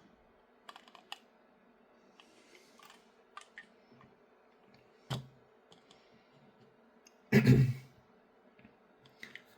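Light clicks and taps of small 3D-printed plastic RC chassis parts being handled, with a sharper knock about five seconds in and a louder bump about two seconds later.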